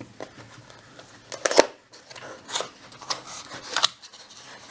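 A retail product box being opened and its contents handled: scattered scrapes, rustles and sharp clicks of cardboard and packaging. The sharpest click comes about a second and a half in.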